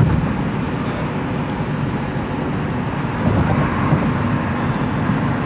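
Steady road and engine noise inside the cabin of a moving car, growing slightly louder a little past the middle.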